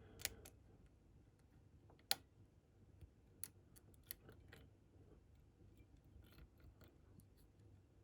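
Faint, scattered metallic clicks of a lock pick working the pin stack of a Medeco cam lock under tension, with a sharper click about two seconds in and a few smaller ones after.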